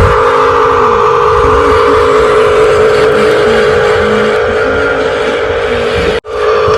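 Steady mechanical drone of RC construction vehicles running, with a constant motor whine and a wavering lower tone. It cuts out abruptly for a moment about six seconds in, then resumes.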